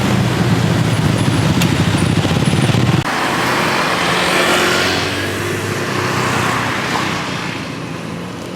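Road traffic: a motor vehicle engine running close by. About three seconds in, an abrupt cut gives way to a vehicle passing with a rush that swells and fades.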